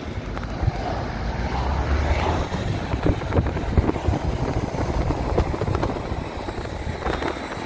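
A car driving at highway speed: steady low rumble of road and wind noise, with uneven buffeting.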